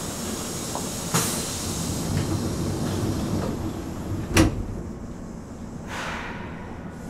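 Inside a Nagoya Municipal Subway 3000-series chopper-controlled train car: steady running noise with a sharp knock about a second in and a louder thump a little past four seconds.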